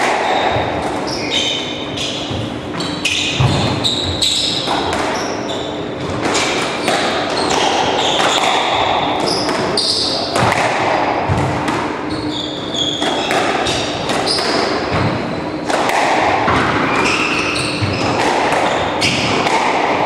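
Squash rally: the ball is repeatedly struck by rackets and smacks off the walls, with short high squeaks of shoes on the wooden court floor between the hits.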